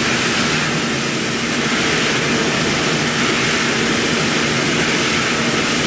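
Mikron VCE800ProX milling machine cutting a copper bar with a small end mill: steady, loud spindle and cutting noise with a low steady hum under it.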